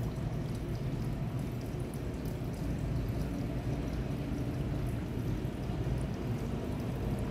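A thin stream of water from a pipe falling into a shallow tank of water, splashing steadily, with a steady low rumble underneath.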